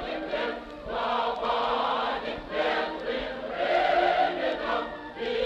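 A choir singing in long held notes, in phrases of a second or two.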